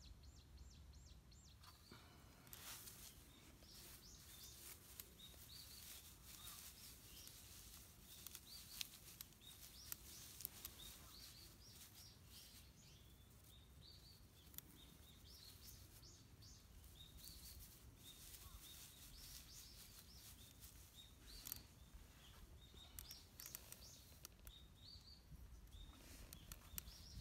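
Dry wood shavings crackling and rustling as they are handled and worked in the hands, in irregular quick clicks. Small birds chirp repeatedly in the background.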